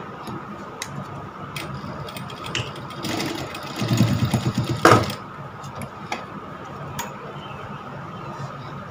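JACK industrial lockstitch sewing machine stitching the overlapped ends of an elastic waistband closed. A steady hum runs throughout, with a louder run of stitching between about three and five seconds in that ends in a sharp click.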